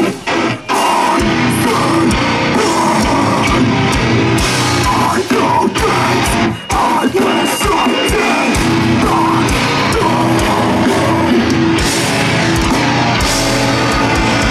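A heavy rock band playing live and loud: distorted guitars, pounding drums and shouted vocals. The band cuts out in a few short stop-start hits in the first second and again around six seconds in.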